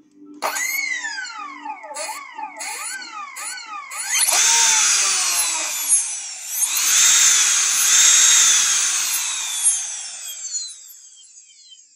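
Brushless motor from a Joysway US-1 RC speedboat, run unloaded on the bench from a 4S LiPo, whining as the throttle is worked: four short revs that rise and fall in pitch, then two long high-speed runs with a brief dip between, winding down near the end.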